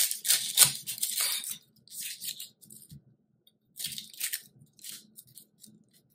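A knife cutting into a yellow onion on a wooden cutting board and the onion's dry, papery skin crackling and tearing as it is pulled off, in a few short bursts, the loudest in the first second and a half.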